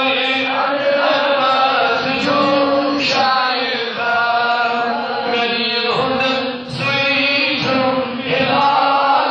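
A man's voice chanting a Kashmiri naat, a devotional poem in praise of the Prophet, into a microphone, in long held melodic lines with short breaths between phrases.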